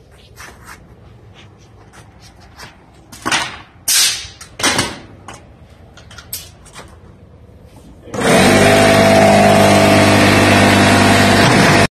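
Pneumatic narrow-crown staple gun firing three times, about two-thirds of a second apart, with lighter clicks around them. About eight seconds in, a loud, steady motor hum starts: the air compressor feeding the stapler kicking on.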